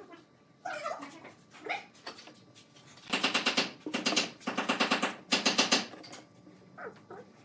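Pipe clamp on a steel pipe being run up against a wood glue-up: rapid metallic clicking in four bursts over about three seconds as the sliding jaw is pushed along the pipe. There are a few softer knocks in the first couple of seconds.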